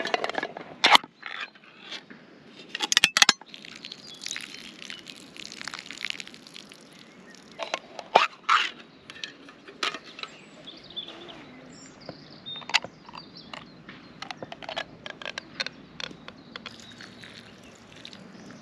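Ring-pull tin cans being opened by hand: sharp metallic clicks as the pull tabs break the seals, and short scraping tears as the lids peel back, several times over.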